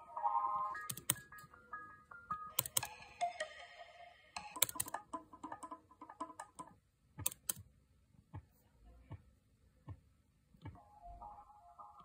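Short snippets of a song playing back from music production software through computer speakers, starting and stopping again and again, with sharp computer keyboard and mouse clicks in between.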